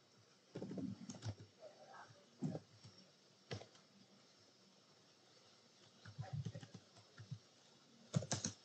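Computer keyboard being typed on, faintly, in short scattered clusters of clicks with pauses between them.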